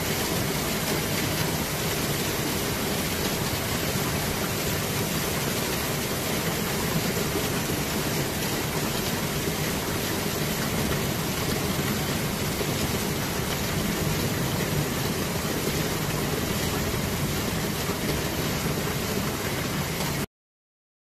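Torrential rain pouring down steadily, a dense even hiss, cutting off suddenly near the end.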